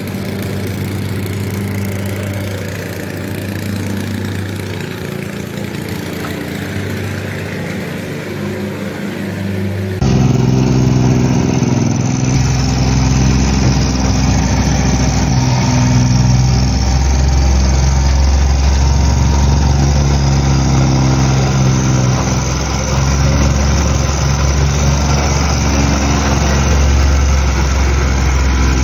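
An engine runs steadily. About ten seconds in it gives way to a louder, lower-pitched petrol plate compactor running, its vibrating plate tamping down backfill.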